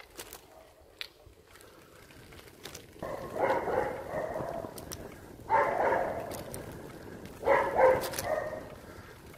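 A dog barking in three loud bouts, about three, five and a half, and seven and a half seconds in.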